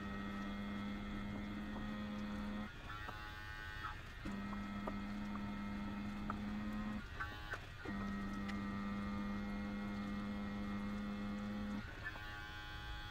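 Benchtop alcohol detector's small motor humming steadily in three runs of about three to four seconds each, with short breaks and small clicks between, as calibration standards are read one after another.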